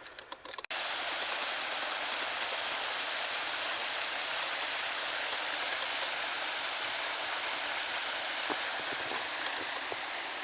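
Steady rushing of running water, like a small waterfall or spillway, starting abruptly less than a second in.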